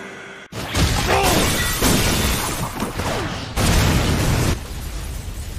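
Cartoon fight sound effects of a heavy blow and a blast: a sudden loud impact about half a second in, then rumbling, crashing debris, with a second louder surge near four seconds before it eases off.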